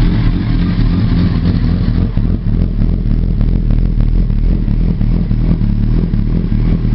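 2006 Kawasaki ZX-10R's inline-four engine idling steadily, heard close to the exhaust.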